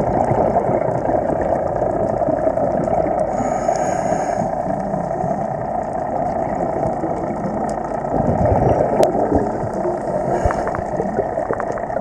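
Underwater sound through a camera housing: a steady muffled rumble, with the diver's scuba exhalation bubbles hissing and gurgling past twice, about four seconds in and again near the end.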